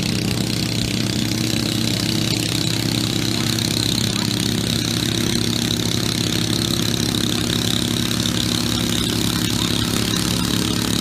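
Garden pulling tractor's engine idling steadily, hitched to the sled before the pull.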